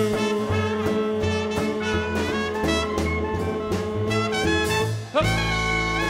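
Big band with saxophones, trumpets, trombones and drums playing the closing bars of a swing number. About five seconds in the band lands on a final held chord.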